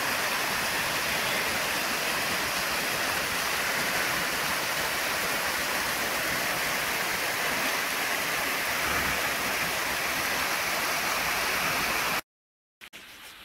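Small woodland waterfall splashing over rocks in a creek, a steady rushing of water that cuts off abruptly about twelve seconds in.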